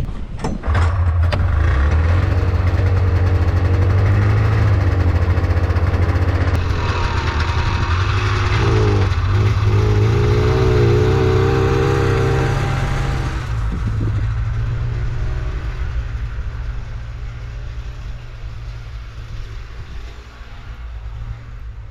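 An engine running loudly and steadily, starting abruptly about a second in, with a wavering whine in the middle and easing off somewhat after that.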